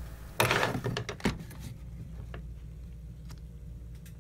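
Handling noise on a workbench: a brief rustle about half a second in, then a sharp click and a few faint ticks, over a low steady hum.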